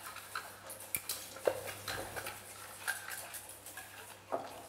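Faint, scattered clicks and light taps of thin metal rods being fitted across a salmon fillet to clamp it onto a cedar plank.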